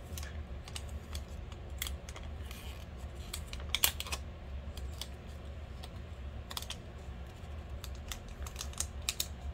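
Light, irregular crinkles and clicks of clear plastic packets and nail polish strip sheets being handled and peeled apart, with a louder cluster of clicks about four seconds in.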